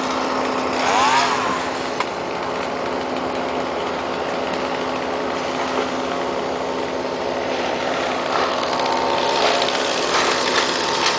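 An engine running steadily at constant speed.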